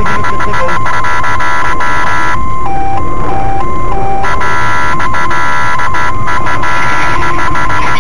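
An electronic siren tone, mostly held on one high pitch, with rapid regular clicking through it. For about two seconds near the middle it switches back and forth between two pitches several times a second, like a hi-lo siren.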